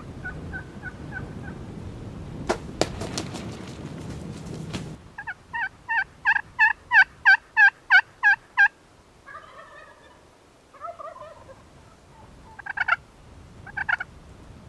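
Gould's wild turkeys gobbling and calling. A cluster of sharp clicks comes a few seconds in, then a loud run of about a dozen evenly spaced calls, followed by softer calls and two more loud calls near the end.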